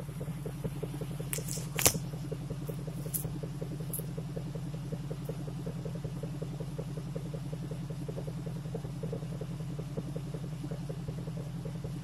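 V8 Jeep with a Borla aftermarket exhaust idling steadily, an even rumble heard close to the tailpipe. A few sharp clicks and one loud knock come about two seconds in.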